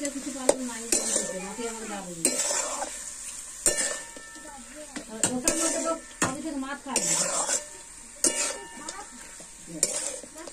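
Metal spatula stirring and scraping chicken pieces in a large metal wok, clinking against the pan every second or two, with the food sizzling in between.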